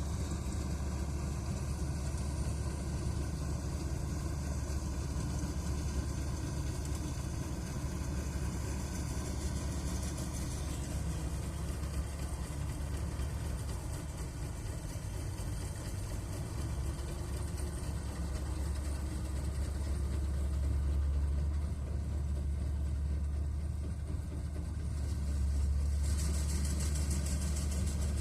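Matharu 4000 combine harvester's diesel engine running steadily with a low drone. It grows louder about three-quarters of the way through and again near the end, when a hiss joins it.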